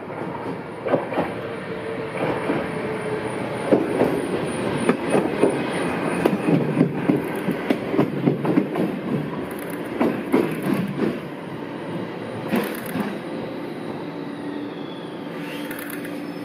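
Low-floor articulated tram running in close on the near track, its wheels clattering in quick uneven knocks over rail joints and points, then running on more smoothly as it slows to a stop at the platform.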